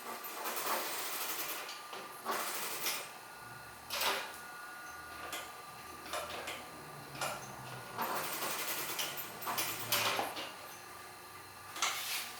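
Sewing machine in use: a series of short, irregular noisy bursts, with a low hum from about three seconds in until near the end.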